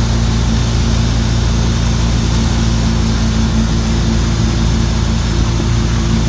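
Wake boat's inboard engine running at a steady cruising pitch, with a constant hiss of rushing water and wind over it.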